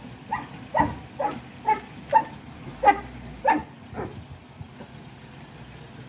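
A dog barking repeatedly, about two barks a second, stopping about four seconds in.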